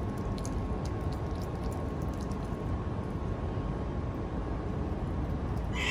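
Steady low background rumble with a faint steady whine. Over it come faint crisp clicks of a lemur biting and chewing a raw sweet potato, mostly in the first two seconds, and a short hiss near the end.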